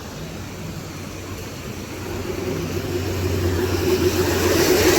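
A motor vehicle's engine approaching, growing steadily louder over the last three seconds.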